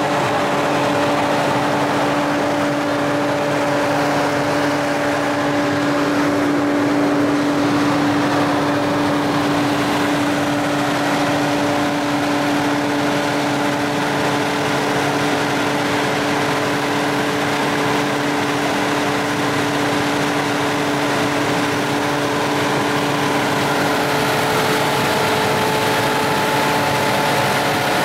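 Aircraft ground support cart running steadily, feeding the parked aircraft through a yellow air duct: an even engine hum with a few steady tones, whose pitches shift slightly about two-thirds of the way through.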